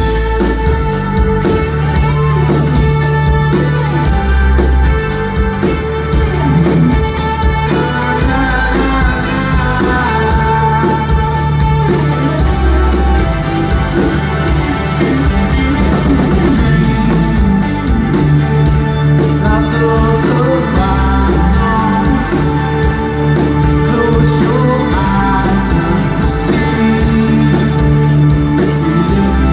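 Rock band playing live in an instrumental passage between sung verses: guitars over a drum kit keeping a steady beat.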